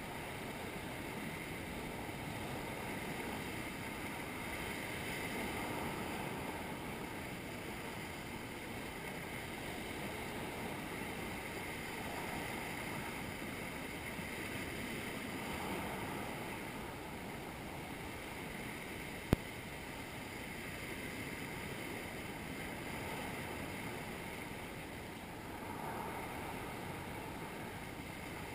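Sea surf washing against rocks, a steady rush that rises and falls in slow surges. A single sharp click about two-thirds of the way through.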